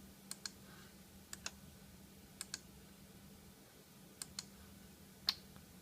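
Clicking at a computer's controls: four quick double clicks spaced about a second apart, then one louder single click near the end.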